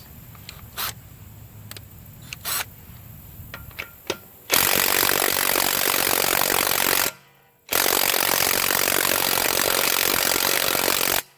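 A HANS 1/2-inch cordless electric impact wrench hammering on a car's lug nut in two long bursts, with a short pause between them, after a few light clicks. The lug nut, torqued to 100 ft-lb, does not budge.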